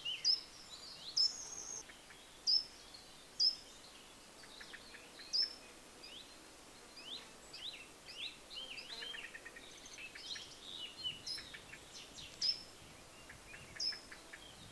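Wild songbirds singing and calling: sharp high chirps about once a second at first, then several birds overlapping with varied phrases and quick trills, over a faint outdoor hiss.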